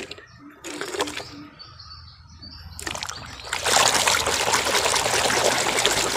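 Hand scrubbing a toy in a tub of soapy water. A steady splashing and sloshing starts about three and a half seconds in, after a few quiet knocks and clicks.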